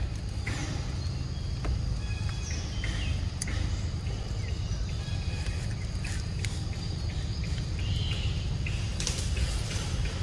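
Outdoor forest ambience: short, high bird chirps scattered over a steady low rumble, with a few sharp clicks.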